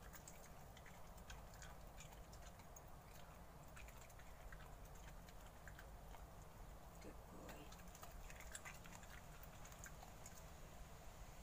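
Faint, irregular crisp clicks of a small terrier chewing raw kale leaves.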